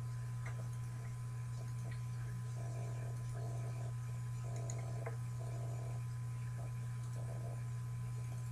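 Steady low electrical hum with a thin steady whine above it, and a few faint short clicks.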